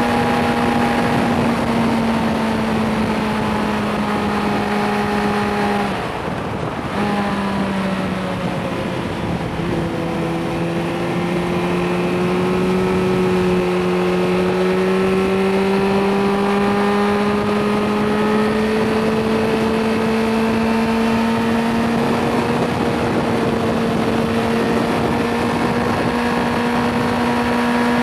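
Suzuki GSR 600's inline-four engine, restricted to 25 kW, pulling steadily under way with wind rush over it. About six seconds in the note breaks off for a second in an upshift, comes back lower and climbs slowly as the bike accelerates.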